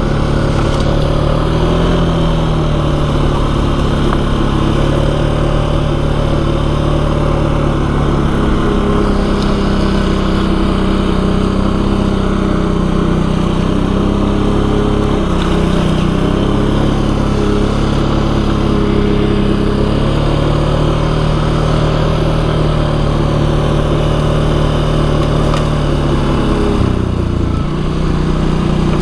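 ATV engine running as the quad is ridden, its pitch rising and falling with the throttle. The engine note drops briefly near the end, then picks up again.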